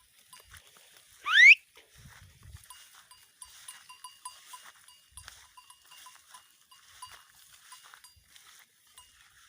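Small bells on grazing goats tinkling faintly and irregularly. About a second in, one loud rising whistle cuts through briefly.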